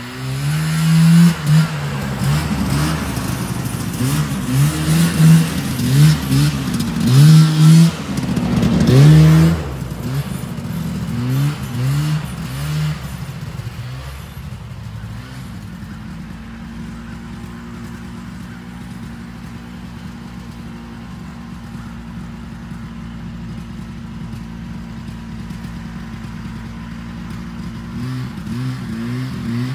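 Two-stroke engine of a vintage John Deere snowmobile revved again and again in short bursts, its pitch climbing and falling each time. About halfway through it settles to a steady idle, and near the end the revving starts again.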